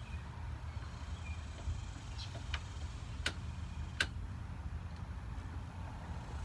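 A few sharp clicks, the two clearest about three and four seconds in, from hands working a cutter and pulling at the wiring and insulated tubing on a vending machine's refrigeration deck, over a steady low rumble.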